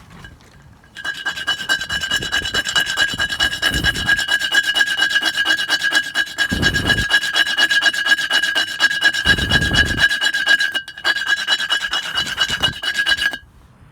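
A file rasping on wood in rapid strokes, starting about a second in and stopping shortly before the end. A steady high ringing tone runs over the strokes, with a few deeper bumps among them.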